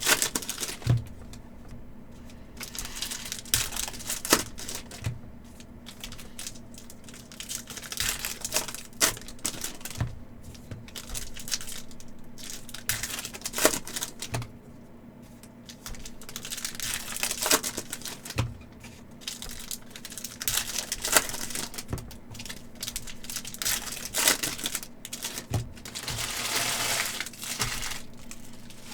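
Upper Deck hockey card packs being opened by hand: wrappers crinkling and tearing in stretches, with scattered sharp clicks and knocks as cards are handled.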